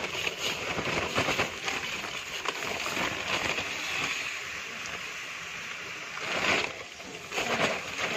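Dry uncooked rice grains pouring in a dense patter from a plastic sack into a red plastic mug and tipped from the mug into a large aluminium basin of rice. There is a louder pour about six and a half seconds in.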